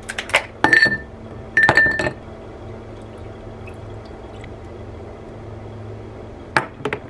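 Two clinks against a glass mason jar, the glass ringing briefly each time, then a steady pour of liquid into the jar of coffee that ends with a sharp click.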